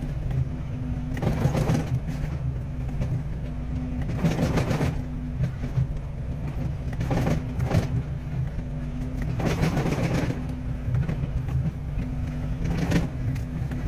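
Excavator diesel engine running steadily, with louder rough noisy surges several times, every two to three seconds.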